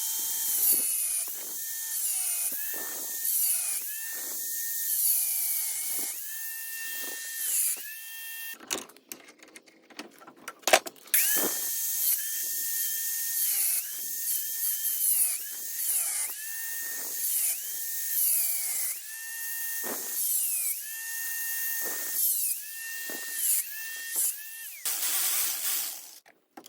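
An electric power tool cutting 1/8-inch steel plate, its motor pitch repeatedly dipping under load and recovering, over a bright hiss of metal being cut. The cutting stops briefly about nine seconds in and again near the end.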